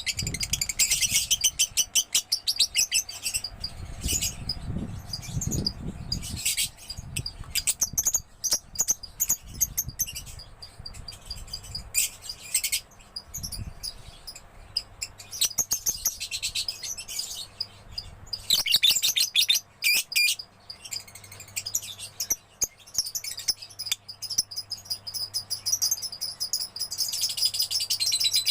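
Young lovebird chattering in long, rapid runs of high-pitched chirps, broken by short pauses.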